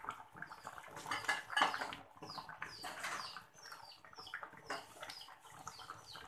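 Wooden spatula stirring a thick fish curry in an aluminium wok, with irregular scraping strokes against the metal.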